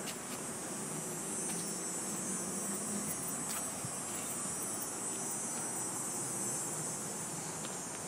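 Steady high-pitched buzzing of insects in the summer trees, holding at one level without a break.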